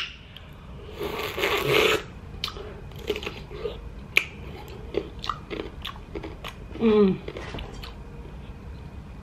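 Crunchy bite into a pickle about a second in, followed by close-miked wet chewing with scattered smacking clicks. A short vocal sound from the eater comes near seven seconds.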